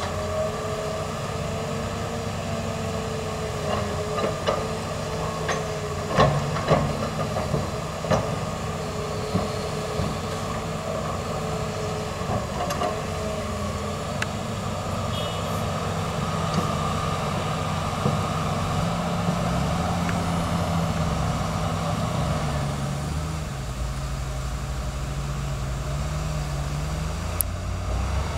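Diesel engines of a Hitachi Zaxis 350 excavator and a loaded dump truck running steadily, with knocks and clatter of coal dropping from the bucket into the steel truck bed a few seconds in. In the second half the engine pitch shifts up and down as the machines work under changing load.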